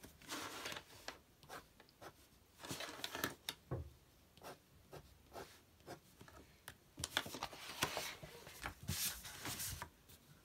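Fine-tip pen scratching across drawing paper in quick short strokes, coming in several clusters.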